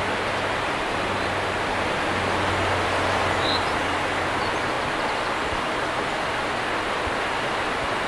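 River water pouring over a low weir and rushing downstream: a steady, unbroken rush. A faint low hum runs under it through the first half, and a single short bird chirp sounds about midway.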